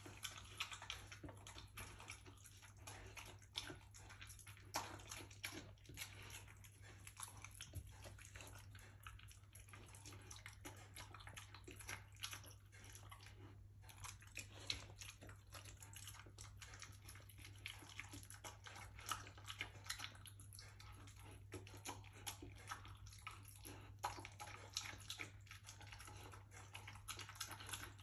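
Rhodesian Ridgeback eating from a glass bowl with noisy smacking: a steady run of wet chewing and irregular small clicks.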